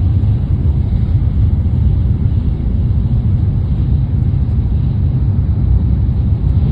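Shinkansen bullet train running at speed, heard inside the passenger carriage: a steady, deep rumble with rushing noise.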